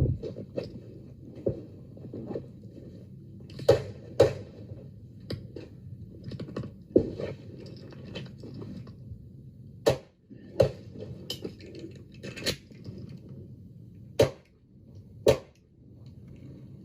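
Gunshots, about nine sharp reports fired singly and in quick pairs at irregular intervals.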